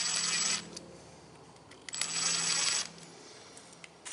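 Cordless impact driver running in two bursts of about a second each, backing out the float-bowl screws of a Nikki carburetor.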